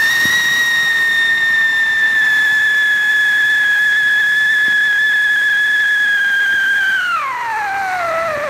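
Whistling ground fountain firework spraying sparks: one loud, steady whistle that begins to slide down in pitch about seven seconds in as the fountain burns out.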